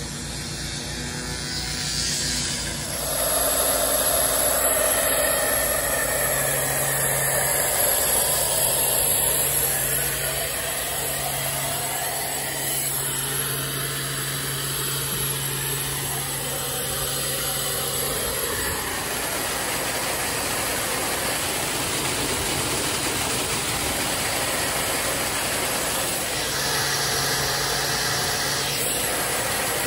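An engine running steadily under a continuous hiss, as from gas-powered pressure-washing equipment at work.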